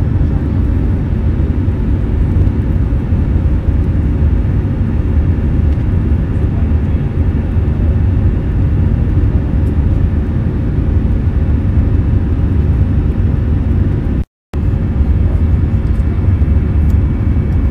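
Airbus A320 cabin noise heard beside the wing: a steady, low jet-engine roar and airflow rumble as the airliner climbs out after takeoff. The sound cuts out completely for a split second near the end.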